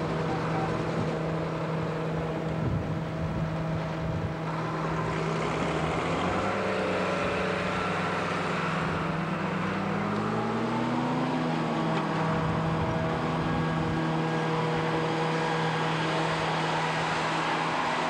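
Diesel engines of a tractor and a self-propelled forage harvester running steadily while chopping maize, with one engine's pitch rising and falling about ten seconds in.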